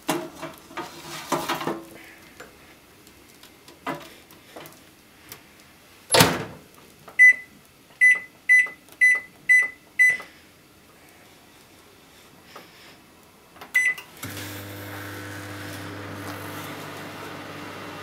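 A plastic microwave pasta cooker is knocked and slid onto the floor of a microwave oven, and the door shuts with a thud about six seconds in. Six short keypad beeps follow, then another beep, and the microwave starts heating with a steady hum and fan noise for the last few seconds.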